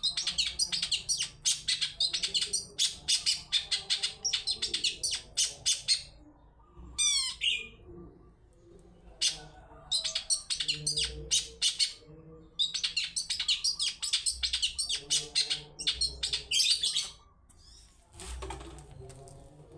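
Long-tailed shrike song: rapid strings of short, sharp chirping notes in several bouts, with a quick falling call about seven seconds in. It is the 'toet toet' type of cendet song used as a lure to set other shrikes singing.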